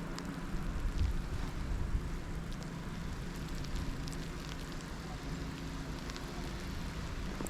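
Steady wind noise with a low rumble during a blizzard, heard as a rushing hiss on the microphone, with faint scattered ticks.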